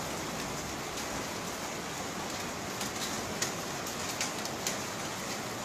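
Steady rain falling, carrying volcanic sand, with four sharp ticks of drops or grit striking close by in the second half.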